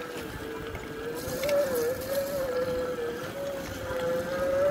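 Front brushless hub motor of a home-converted electric mountain bike whining steadily under throttle, its pitch wavering a little up and down with speed, over tyre noise on a wet gravel path.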